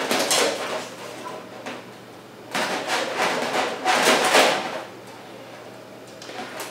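Utility knife blade scraping along the edge of a thin 0.45 mm aluminium print sheet: three scraping strokes, one at the start and two close together in the middle, as the trimmed border is worked off.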